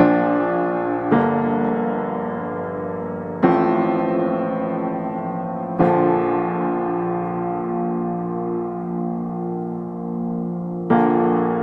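Background music of slow piano chords, a new chord struck every two to five seconds and left to ring and fade.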